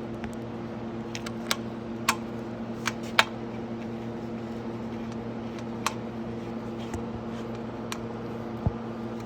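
Scattered sharp clicks and taps of a hand tool working the last bolt on a plastic dirt-bike side fairing, the loudest a little past three seconds in, over a steady low hum.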